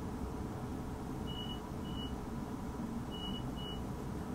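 Four short high beeps in two pairs from a commuter train's door warning, the signal that the doors are closing, over the steady low hum of the standing train.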